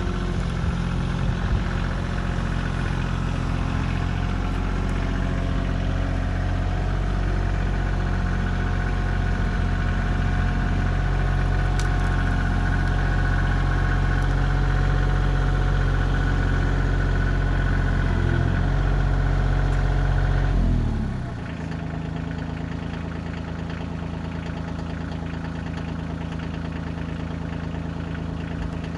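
Kioti CK2610 compact tractor's diesel engine running steadily at working revs. After about twenty seconds the revs fall and it settles to a lower, quieter idle.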